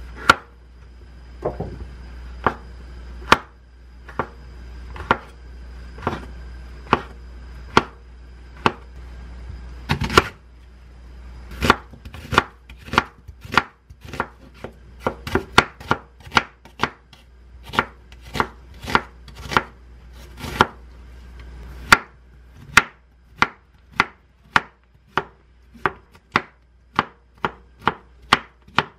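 Kitchen knife slicing shiitake mushroom, onion and zucchini on a wooden cutting board, each stroke a sharp knock of the blade against the wood. The cuts come about once a second at first, then quicken to two or three a second after about ten seconds.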